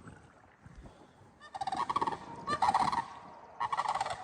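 Large birds giving loud, rolling, rattling calls, three of them about a second apart starting about a second and a half in.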